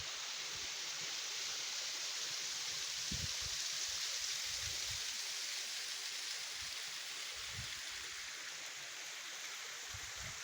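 Steady rush of water falling at a small spring-fed waterfall, with a few brief low thumps about three and about seven and a half seconds in.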